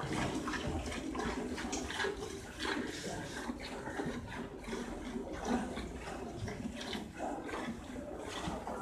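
Cow being milked by hand: repeated squirts of milk hitting a metal pail, with a steady liquid splashing sound.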